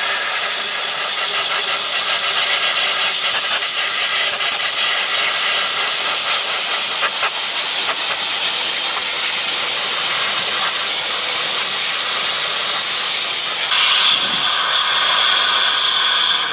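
Sandblaster blasting abrasive at a rusted steel frame: a loud, steady hiss of air and sand. Its tone shifts about three-quarters of the way through, and it cuts off suddenly at the end.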